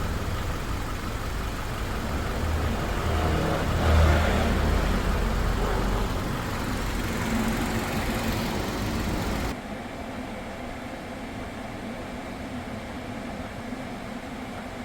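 Kia K5 engine running while its air conditioning is charged with refrigerant, a steady rumble under a rushing noise. About nine and a half seconds in the level drops suddenly to a quieter steady hum.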